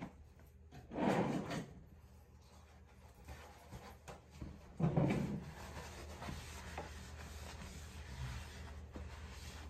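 Two short muffled scraping or sliding sounds, like something being moved or a drawer being pulled, about four seconds apart, over a faint steady low hum.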